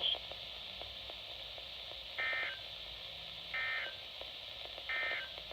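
Three short bursts of EAS (SAME) digital data tones from a weather radio broadcast, each a fraction of a second and about 1.4 s apart: the End of Message code that closes a National Weather Service alert.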